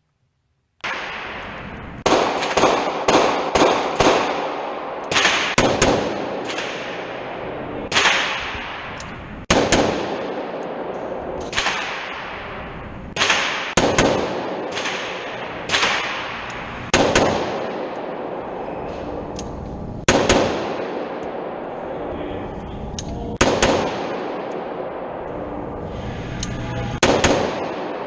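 Gunfire on a shooting range: about two dozen sharp shots starting about two seconds in, some in quick strings a third of a second apart and others singly, each followed by a ringing echo.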